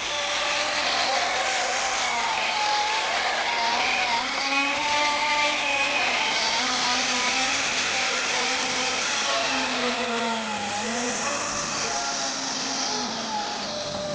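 Kyosho GX-15 two-stroke nitro engine of an RC snowcat running, its pitch rising and falling as it is throttled up and down, with a high hiss over it.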